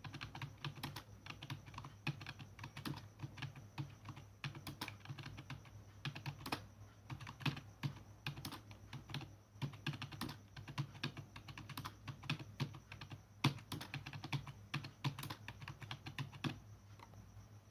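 Touch-typing on a computer keyboard: a fast, uneven run of key clicks that stops shortly before the end, over a steady low hum.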